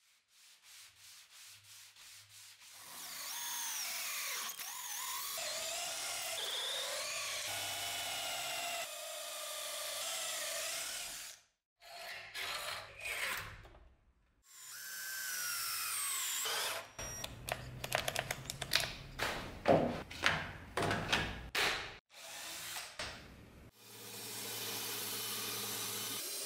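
Woodworking tools working wood: quick faint strokes at the start, then a whining tool that wavers in pitch for several seconds, and a louder run of uneven scraping strokes in the last third.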